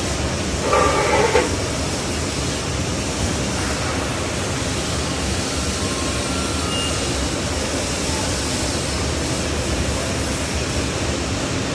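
Steady rushing noise of workshop machinery during laser welding, with a brief louder sound about a second in.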